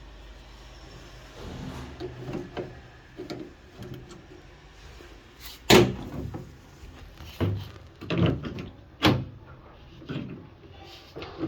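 A run of separate knocks and clacks from hands and tools working on a washing machine's panel, the loudest about six seconds in and again about nine seconds in.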